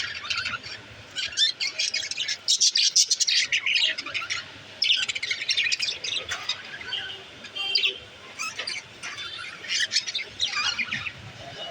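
Pet budgerigars chirping and chattering in quick overlapping bursts, busiest in the first half and again near the end.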